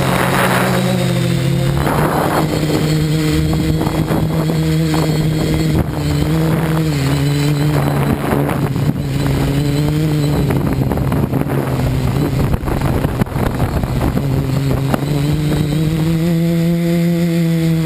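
FPV multirotor drone's electric motors and propellers buzzing, recorded by the camera on the craft. The hum dips and rises in pitch several times as the throttle changes, and steps up near the end.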